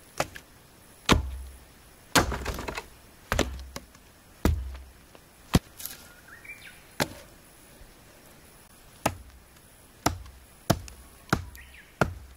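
A nata (Japanese hatchet) chopping into a wooden board stood on a stump, splitting it for firewood. About a dozen sharp strikes come at uneven intervals, closer together near the end.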